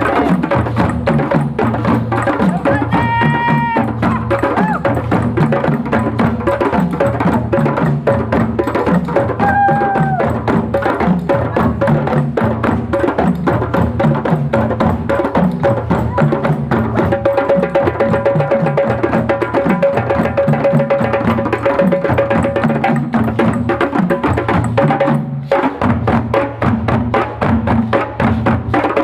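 A drum circle playing: several hand drums and percussion beating a dense, steady rhythm, with a few brief pitched tones rising over it.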